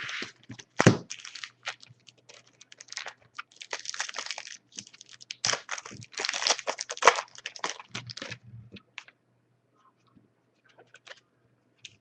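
Trading card pack wrapper crinkling and tearing as packs are ripped open and cards handled, in irregular bursts of crinkling and clicks that die down to a few faint ticks after about eight seconds.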